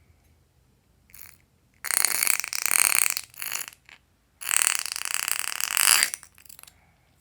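Fart-like sputtering of air forced out of a balloon: a short burst about a second in, then two long fluttering bursts of about a second and a half each, with a few shorter ones between and after.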